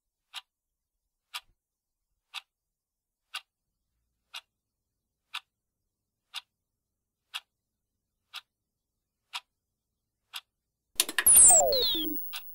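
Wall clock ticking steadily, about one sharp tick a second. Near the end a loud burst of noise with quickly falling whistles cuts in as the old television set switches on.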